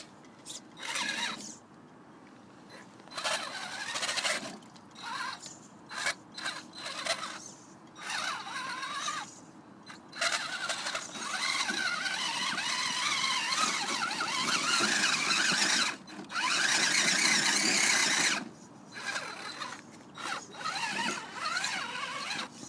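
Electric motor and geared drivetrain of a Traxxas Summit RC rock crawler whining as it climbs rocks in low gear. The whine wavers in pitch and starts and stops in many short throttle bursts. Near the middle it runs almost continuously for several seconds.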